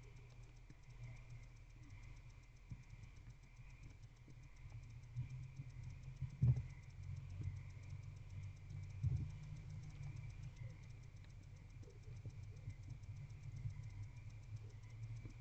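Faint scratching and ticking from a barn owl feeding on a mouse on the wooden nest box floor, with two dull thumps partway through. Under it runs a steady low hum and a faint high whine.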